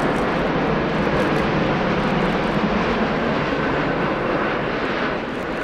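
Jet airliner passing close by: a loud, steady rush of engine noise that begins to fade near the end.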